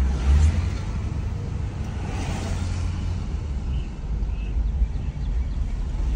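Steady low rumble of a car on the move, with a brief swell of hiss about two seconds in.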